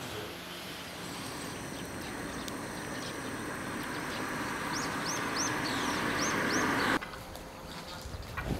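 A car approaching along a road, its engine and tyre noise growing steadily louder before cutting off abruptly near the end. Midway a bird gives a quick series of about six short chirps.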